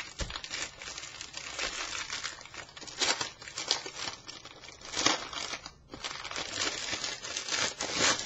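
Clear plastic packaging crinkling and rustling as a spiral notebook is handled and unwrapped, with louder crackles about three, five and eight seconds in.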